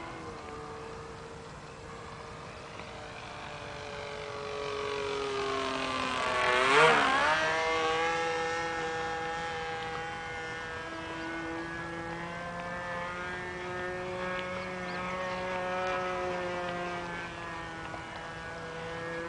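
Small engine of an OK Model Commander 123 model airplane running in flight, its pitch wavering as the plane circles. It grows louder and passes close about seven seconds in, the loudest moment, then runs on a little farther off.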